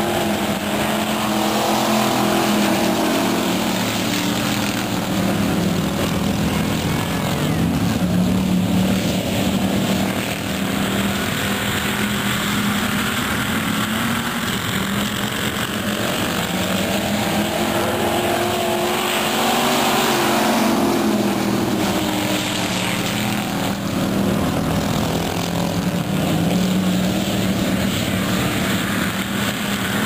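Several pure stock dirt track race cars running together on the track. The engines make a loud, continuous sound that rises and falls in pitch as the cars speed up and slow down.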